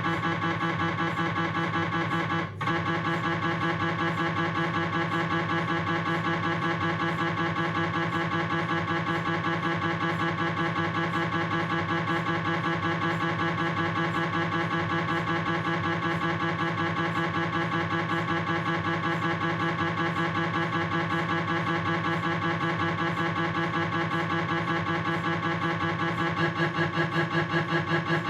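Philips 1.5 T MRI scanner's gradient coils buzzing through a proton-density fat-suppressed coronal knee sequence: a steady, rapidly pulsing tone of several pitches at once. It dips briefly about two and a half seconds in, and the pulsing grows more pronounced near the end.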